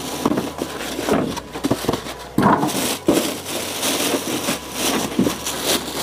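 Plastic bag crinkling and rustling as a PC cabinet wrapped in it is handled and pulled out of its packing, in irregular crackly bursts.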